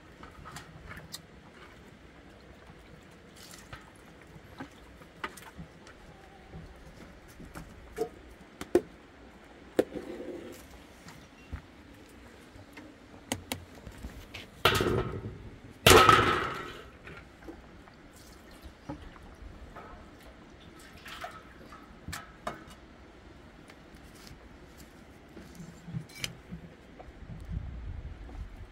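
Scattered light clicks and knocks of objects being handled, with two louder rustling or splashing bursts of about a second each about halfway through.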